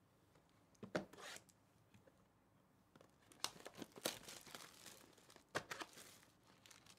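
Plastic shrink wrap being torn off a sealed cardboard trading-card box and crinkled, then the box's cardboard lid being pulled open. One short rip about a second in, then a run of sharp crackling rips from about three seconds on.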